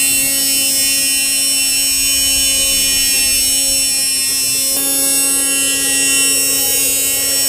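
Steady electric motor and gear whine of a radio-controlled model Fendt tractor pulling a slurry tanker, shifting slightly in tone about five seconds in.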